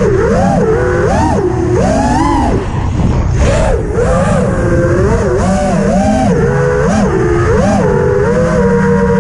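FPV freestyle quadcopter's four Emax Eco 2207 1900kv brushless motors and props on a 4S battery, heard from the onboard camera. The whine swoops up and down in pitch with rapid throttle changes during the flying, then settles into a steadier tone near the end, over a rush of wind noise.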